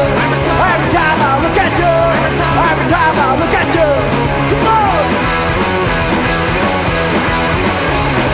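Garage punk rock music from a full band: steady bass and drums, with bending high lead lines over them, mostly in the first half.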